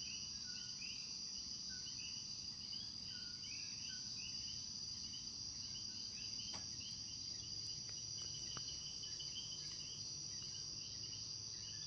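Night chorus of common coquí frogs, many overlapping two-note 'co-quí' calls with a short low note and a higher rising note, over a steady high-pitched insect drone.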